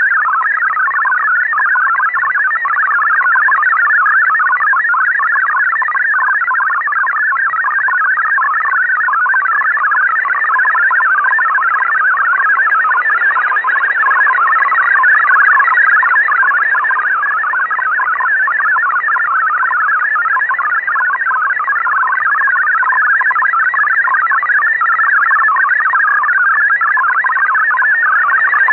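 MFSK64 digital data signal from WRMI on 7730 kHz, heard through a Tecsun PL-398BT shortwave radio's speaker. It is a continuous, rapid warble of shifting tones between about 1 and 2 kHz, steady throughout while the text is being decoded.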